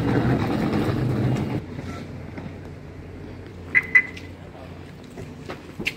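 Trolley-suitcase wheels rumbling over concrete for about the first second and a half. Then two quick high chirps about four seconds in, as the car door is opened, and a sharp click near the end.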